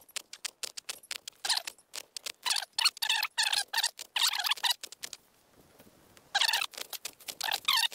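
Small knife chopping fresh wild garlic (bear's garlic) stalks: quick, irregular crisp cuts in two runs, with a pause of about a second and a half in the middle.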